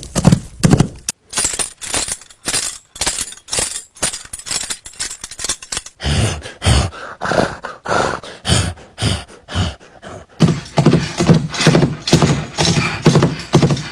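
Foley sound effects made by hand: a run of sharp knocks and thuds in a quick, fairly even rhythm. The knocks change in character about six seconds in and again near ten seconds.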